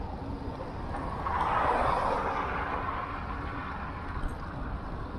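A car passing the bicycle, its tyre and engine noise swelling about a second in and fading over the next two seconds, over a steady low rumble.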